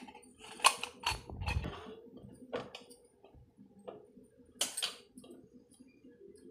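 Scattered clicks and knocks as the parts of a chakli press are handled against a steel plate and dough is broken off. A sharp tap comes just under a second in and another a little before five seconds.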